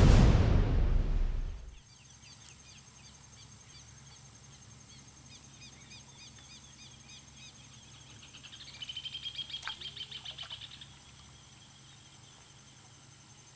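Opening music cuts off within the first two seconds, leaving birds calling: a run of short repeated chirps, then about eight seconds in a louder rapid trill that lasts about two seconds.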